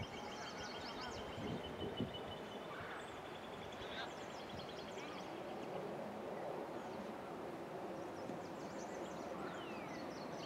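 Birds chirping over a steady outdoor background, with a high rapid trill held on one pitch for the first few seconds and short high chirps recurring throughout.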